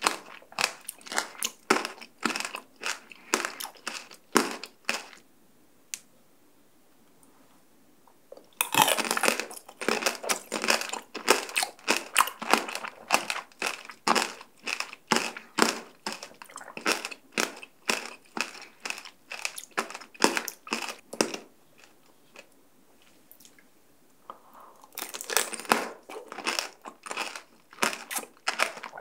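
Close-miked crunching and chewing of tanghulu, the hard sugar shell on candied fruit cracking between the teeth in quick crackly bites. There are three runs of crunching with two quiet pauses, and a loud new bite about nine seconds in.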